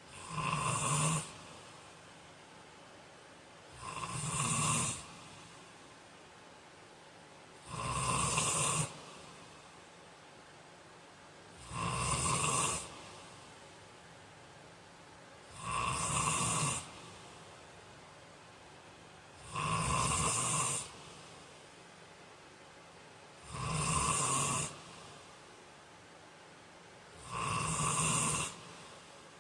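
A man snoring in his sleep: eight regular snores about every four seconds, each lasting about a second, with quiet between them.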